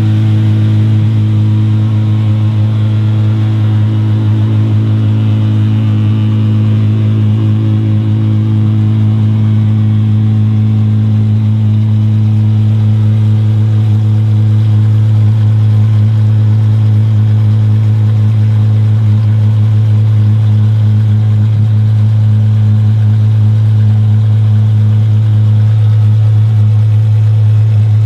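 Apollo IE's 6.3-litre naturally aspirated V12 idling steadily and loudly at a constant low pitch, with no revs.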